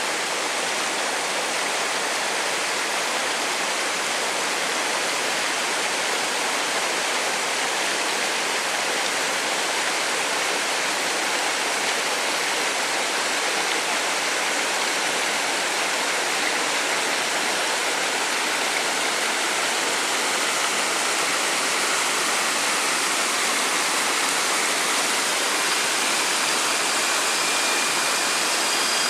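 Waterfall rushing steadily, water pouring and splashing over rocks in a continuous roar of white noise.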